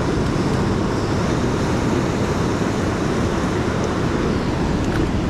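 Steady rushing noise of wind buffeting the microphone over surf washing against the shore, even in level throughout.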